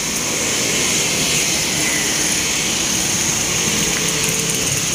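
Steady noise of road traffic passing close by on a highway.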